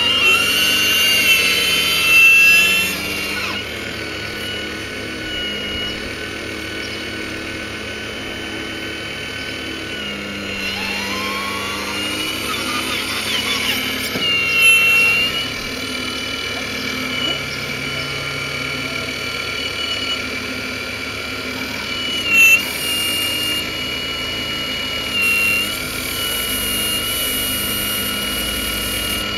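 Radio-controlled scale Hitachi hydraulic excavator working: its hydraulic pump whines steadily, and the pitch slides up and down as the boom and bucket move, most plainly near the start and again about halfway through. There are a few brief louder moments as it digs.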